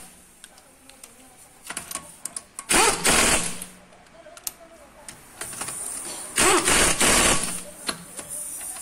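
Pneumatic impact wrench hammering on the wheel bolts of a Renault Clio 4 in two short runs, about three seconds in and again about six and a half seconds in, the second about a second long. Light metal clinks come between the runs as the bolts and socket are handled.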